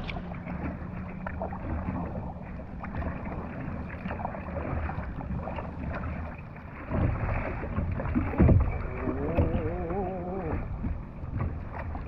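Kayak paddle strokes and water sloshing against a plastic sit-on-top kayak's hull as it moves along. There are louder thumps about seven and eight and a half seconds in, and a short wavering tone near the end.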